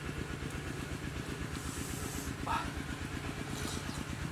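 A small engine running steadily in the background with an even low pulse, over soft hissing slurps as hot soup is sipped from a bowl.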